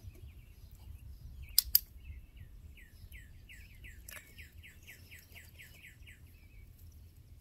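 A dog-training clicker clicks once, a sharp double click-clack about a second and a half in, the marker being paired with a treat to charge it. A bird sings a run of quick falling chirps behind it.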